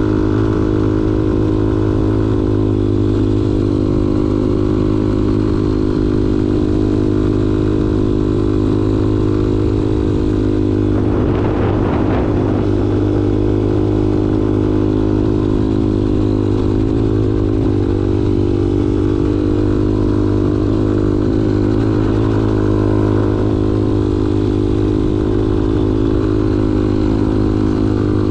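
A 2002 Honda XR200's single-cylinder four-stroke engine running steadily at an even pace. A short rush of rougher noise comes about eleven seconds in.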